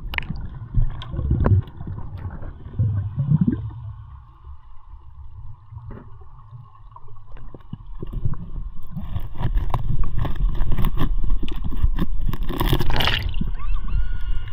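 Underwater sound heard through a camera's waterproof housing: muffled water gurgling and sloshing with scattered small clicks and a faint steady hum. It grows louder over the second half into a rush of water noise.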